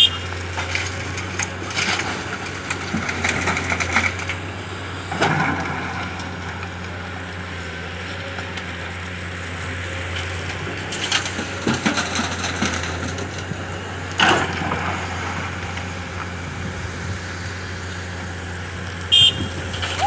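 Komatsu crawler excavator's diesel engine running at a steady drone, while bucketloads of soil and stones crash and rattle into a dump truck's bed several times.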